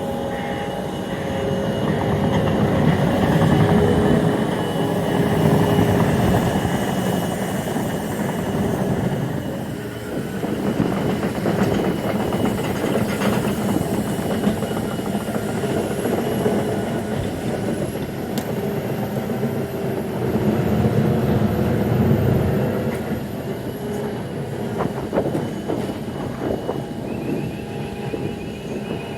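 Freight train running past on the line, a long continuous rumble of wheels and wagons that swells and eases a few times.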